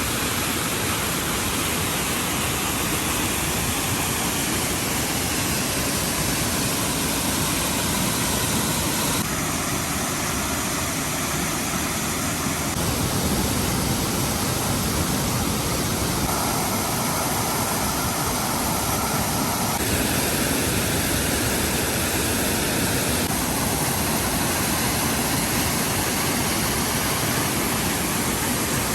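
Nunobiki Falls waterfall: a steady, dense rush of falling water, its tone shifting abruptly several times.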